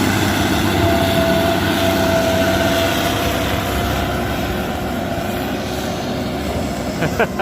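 Heavy diesel engine running steadily under the hiss of heavy rain.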